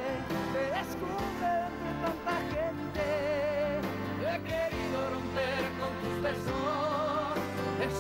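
Telenovela opening theme song: a singer holds a melody with wide vibrato over a steady instrumental backing.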